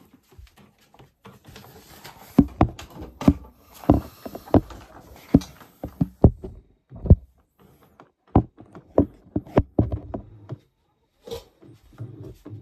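Handling noise: a run of irregular knocks and clunks with rustling for several seconds, then a few more knocks near the end.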